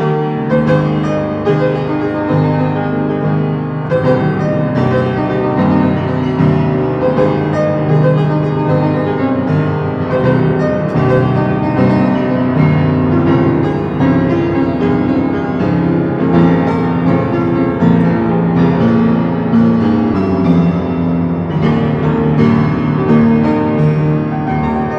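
Instrumental music led by piano, steady notes struck at a regular pace over low sustained tones.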